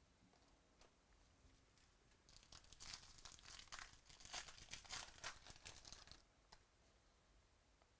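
A trading-card pack's foil wrapper crinkling and tearing as the pack is opened by hand: a run of faint, crisp crackles for a few seconds in the middle, then quiet room tone.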